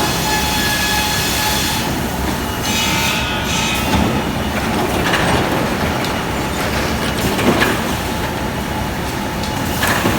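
Sawmill machinery running: a steady, loud mechanical din with a constant high whine over it and a few knocks.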